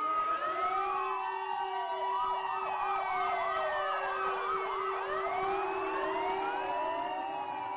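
Several sirens wailing at once, their pitches sliding up and down over one another, with a fast yelping warble of about four cycles a second in the middle.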